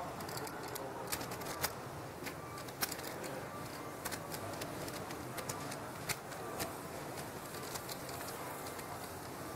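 Clay poker chips clicking together in irregular, sharp clicks as they are handled at the table, over a steady background hiss.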